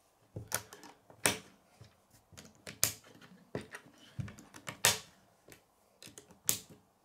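K'nex plastic connectors and rods clicking and snapping as they are pressed together by hand. The clicks are irregular, with about four louder snaps standing out among softer taps.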